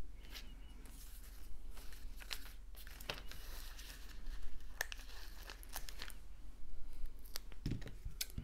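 Foam adhesive squares being peeled off their roll, a crinkly tearing rustle, with paper pieces sliding and light clicks on the table.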